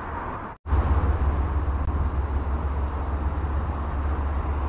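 Wind buffeting the microphone: a steady low rumble with a faint hiss above it, starting after a brief silent gap about half a second in.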